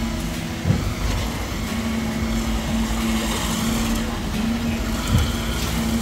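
Diesel engine of a concrete mixer truck running steadily during the pour, with two short thumps, about a second in and near the end.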